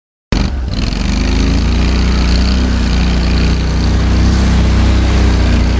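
Argo 6x6 ATV's engine running steadily under load as it climbs a dirt hill, heard from on board: a loud, low, even drone that cuts in just after the start.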